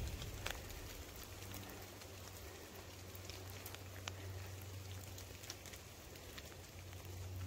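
Faint rain dripping through the forest canopy: a soft patter with scattered single drops, under a faint low steady hum.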